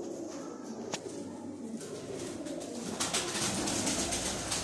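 Domestic pigeons cooing in a low, rolling murmur. A click about a second in, and from about three seconds a louder rustling as a pigeon is handled close to the microphone.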